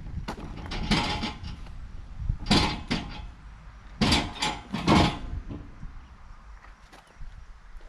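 Handling noise: scattered clicks and knocks, with four short scraping rasps, the loudest about four to five seconds in.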